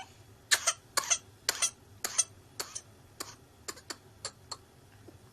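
A child's whooping-cough (pertussis) coughing fit: a rapid string of a dozen or more short, sharp coughs, often in pairs, about two or three a second, growing weaker and more spaced out toward the end.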